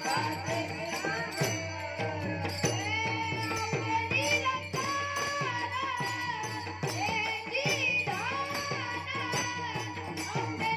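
A boy's voice singing a Warkari bhajan in long, gliding, ornamented lines, over the regular clash of brass taal hand cymbals and a steady low drone.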